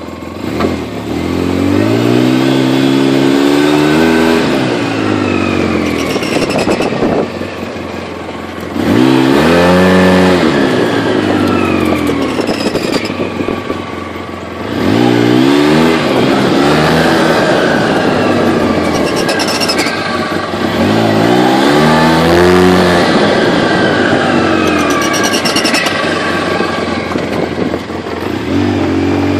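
An engine repeatedly revving up and then falling back, its pitch rising and dropping about five times.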